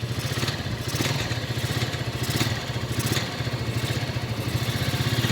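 Italika FT150 motorcycle's single-cylinder engine idling with a steady, even pulse and a few light clicks: the vibrations the owner calls normal for the bike, now that it runs smoothly after repair.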